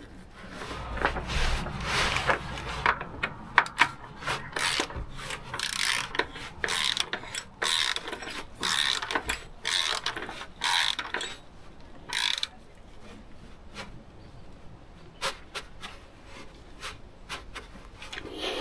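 Ratchet wrench clicking in short runs, with rubbing and scraping, as the oil filter cartridge housing is threaded up and tightened. The clicking is busy through the first two-thirds, then thins to a few faint clicks near the end.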